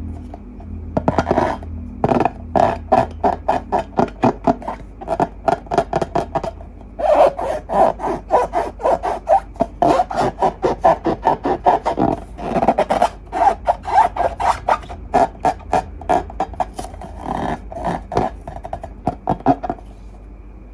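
Slime being squished and kneaded by hand: a quick run of short, wet, crackling squelches, several a second, pausing briefly about two seconds and seven seconds in.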